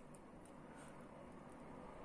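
Near silence: faint room tone, with a few soft clicks in the first half second.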